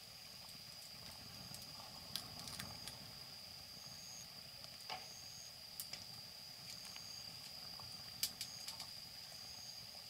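Wood fire crackling, with scattered sharp pops at irregular intervals, the loudest about eight seconds in, over a steady faint high-pitched tone.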